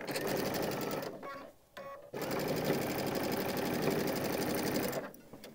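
Sewing machine stitching a quarter-inch seam through two pieces of quilting cotton, a fast even run of needle strokes. It runs for about a second, pauses briefly, then runs again for about three seconds and stops near the end.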